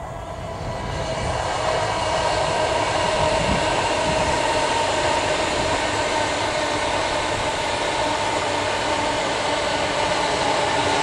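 Class 321 electric multiple unit passing, its wheels rumbling on the rails under a steady electric hum from the traction equipment. It swells over the first two seconds as the train comes up, then holds level.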